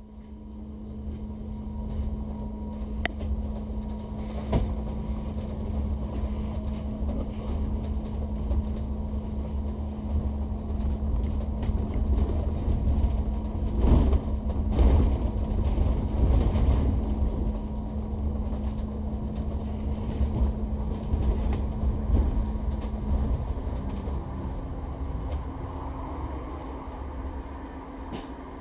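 Inside a London double-decker bus: a steady low rumble of the running bus with a constant hum that steps up a little in pitch about three quarters of the way through, and a few short knocks and rattles from the body.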